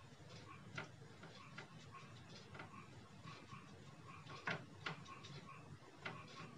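Flat paintbrush dabbing and scrubbing in a plastic watercolour palette, picking up paint from the pans: faint, irregular light taps and clicks, with two slightly louder ones about four and a half seconds in.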